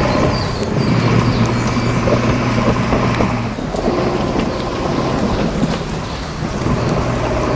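A heavy diesel engine of construction machinery running steadily under heavy rain, its note changing a little past halfway through.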